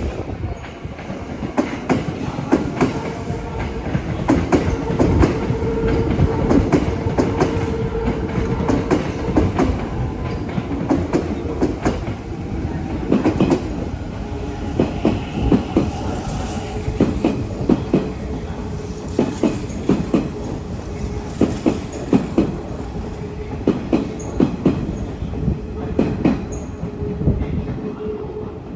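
Kintetsu train passing close by, its wheels clacking over the rail joints under a continuous rumble, with a steady whine held for a few seconds at a time.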